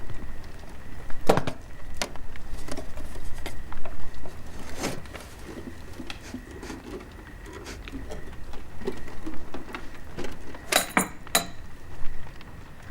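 Scattered knocks and light clatter, with a quick cluster of sharp clicks about eleven seconds in, over a faint steady high tone.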